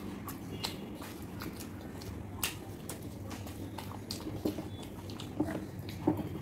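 Close-up mouth sounds of people chewing and biting crisp fried pakoras and rice, with scattered short crunches and clicks. A steady low hum runs underneath.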